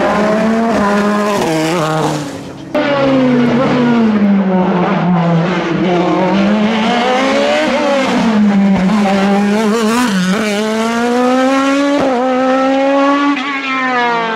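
Racing car engines at hard throttle on a hillclimb, the revs climbing and dropping sharply again and again through gearshifts. The sound dips briefly, then cuts in again abruptly a little under three seconds in, as a second car, an open sports-prototype, takes over, revving hard through a hairpin.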